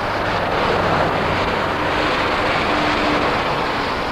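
A passing vehicle's steady rushing noise that swells a little and then eases off.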